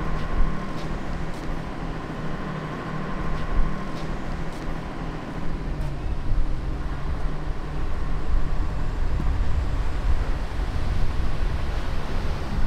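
Crawler crane's diesel engine running steadily with a low rumble as it hoists bags of scrap, with a few light clicks in the first half.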